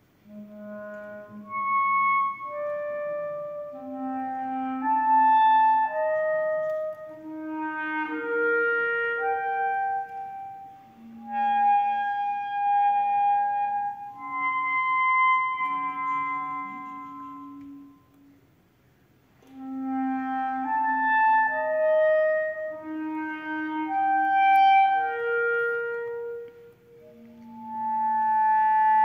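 Clarinet playing a slow melody of long held notes, starting from silence as the piece opens, in two phrases with a short break about two-thirds of the way through.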